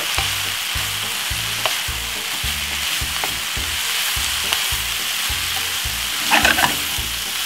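Raw beef mince and chopped vegetables sizzling in a hot frying pan as a wooden spoon stirs them, with a brief louder clatter of stirring a little after six seconds in.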